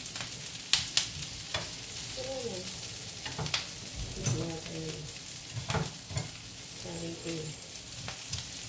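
Fatty meat and sliced onion sizzling steadily in oil in a nonstick frying pan, stirred with wooden chopsticks that click and tap against the pan several times.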